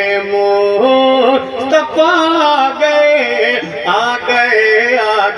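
A man singing a naat, drawing out a wordless melismatic passage: long held notes with the pitch sliding and turning between them.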